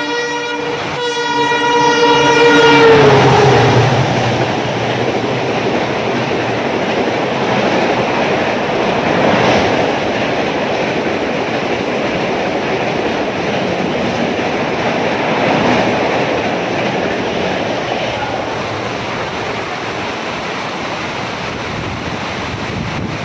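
Diesel locomotive of a speeding Rajdhani Express sounds its horn for about three seconds, the pitch dropping as it passes. The coaches then rush past at speed in a long, steady roar of wheels and wind.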